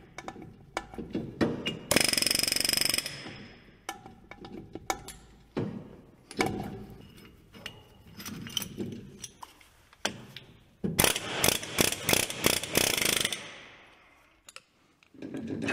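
Power tool bursts and metal clanking from teardown of a Ford F-250's 10.5-inch rear axle differential. There is a short steady burst about two seconds in. A longer rapid hammering burst comes near the end, typical of an impact tool. Between them are scattered clicks and clanks of hand tools on the axle parts.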